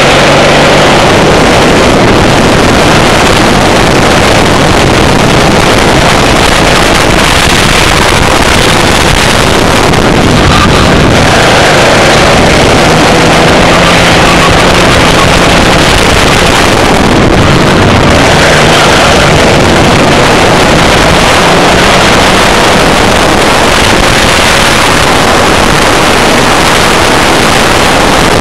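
Racing kart engine running at speed, heard onboard, with its note rising and falling. It is loud and heavily mixed with wind rushing over the microphone.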